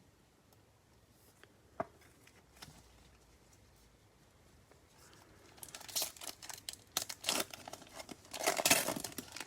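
Trading-card pack wrapper being torn open and crinkled: a run of crackling tears in the last few seconds, loudest near the end. Before that it is nearly quiet, with a single click about two seconds in.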